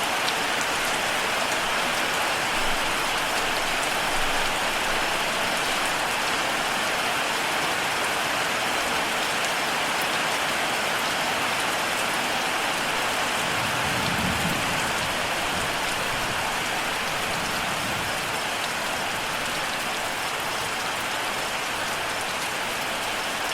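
Steady, heavy rain falling on a surface, an even hiss of many drops, with a soft low rumble swelling briefly about midway.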